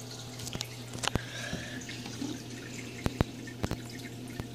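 Aquarium water trickling with irregular drips and plops, over a steady low electrical hum from the tank's equipment.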